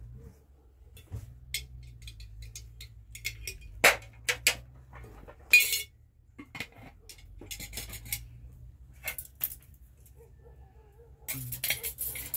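Irregular clinks, clicks and knocks of hard objects, with a few louder short hissy scrapes about four and five and a half seconds in and again near the end, over a low steady hum.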